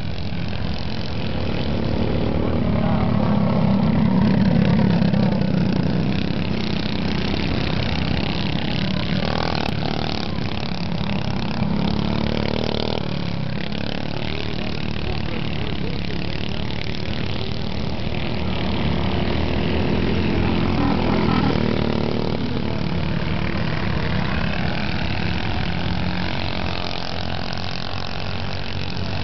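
Go-kart engines running as the karts race around a dirt track, the sound swelling as they come past, loudest about four seconds in and again around twenty-one seconds.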